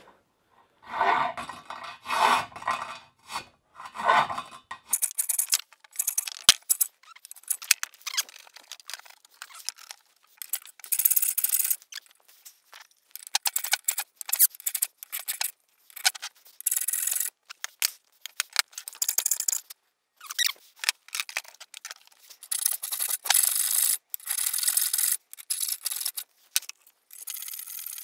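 Hand file rasping back and forth in a bolt hole of a metal jacking rail, widening a hole that doesn't line up. The file goes in quick strokes in irregular runs, and the strokes turn brighter and higher-pitched from about five seconds in.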